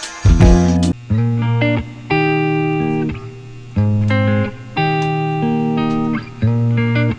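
Background music: a series of held chords, each lasting about a second, with short dips between them.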